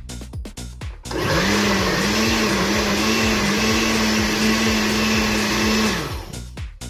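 Countertop blender motor switching on about a second in and blending boiled breadfruit and okra with their cooking liquid. Its pitch wavers a few times at first and then holds steady, and it switches off about a second before the end.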